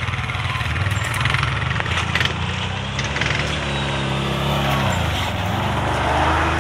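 ATV engines running as a quad bike climbs the dirt trail and passes close by. Its engine revs up, rising in pitch, then drops back about five seconds in.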